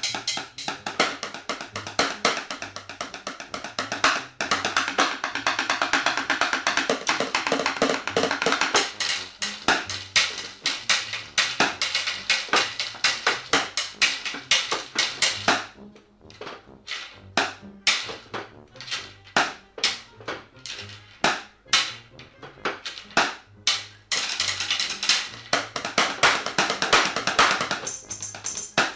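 Drumsticks beating out a fast rhythm on a homemade drum kit of household objects, a plastic box and chair parts among them, over a backing music track. Past the middle the music drops away for several seconds and only the sharp, separate stick hits are heard, then the track comes back near the end.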